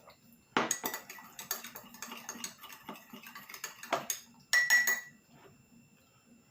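Metal spoon stirring turmeric tea in a cup, a rapid run of clinks against the cup's side. It starts about half a second in with a loud clink, has two louder ringing clinks near the end, and stops about five seconds in.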